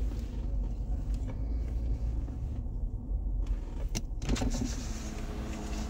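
Steady low rumble inside a car. About four seconds in there is a click, and then the power window motor whines as a side window rolls down.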